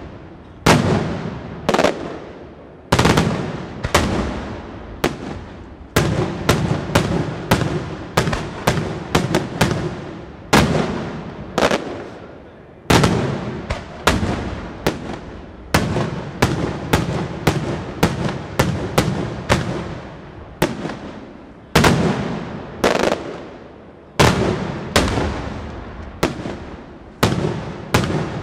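Daylight aerial firework shells exploding overhead in a steady barrage of loud bangs, about one or two a second, each echoing away before the next.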